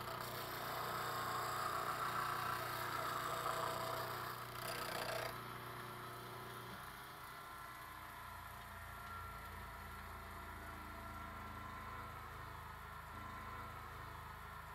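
8-inch bench grinder running, a steel chisel held against the spinning wheel on the tool rest for about five seconds, grinding a new bevel. Then the chisel comes off and only the motor's quieter hum remains, dropping a little lower in pitch about halfway through.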